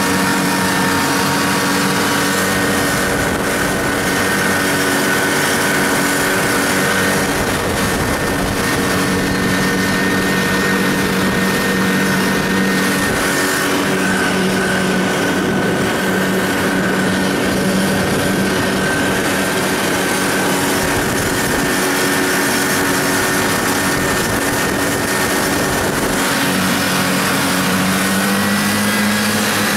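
Snowmobile engine running steadily at cruising speed, heard from the rider's seat, with a continuous rushing hiss of the track and snow underneath. Near the end the engine note rises a little.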